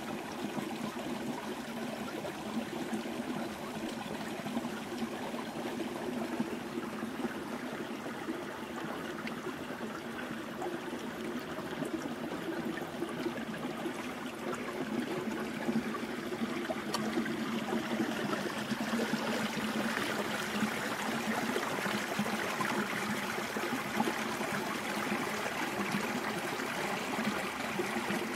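Small forest stream running steadily, a continuous trickling rush of water that grows a little louder and brighter about halfway through.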